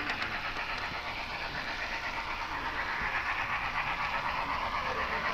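HO-scale model train running along the layout's track: a steady whirring noise with a quick, even pulse.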